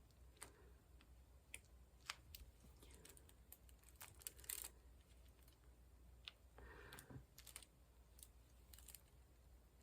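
Faint, irregular little clicks and taps of a diamond-painting drill pen pressing resin drills onto the canvas, with a brief rustle about seven seconds in.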